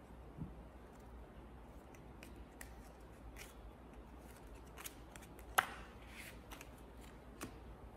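Playing cards being handled and dealt onto a felt mat: faint, scattered flicks and snaps of the cards, with one sharper snap about five and a half seconds in.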